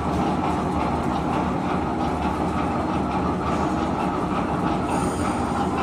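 Rebar bending machine running: a steady mechanical noise from its motor and gearbox.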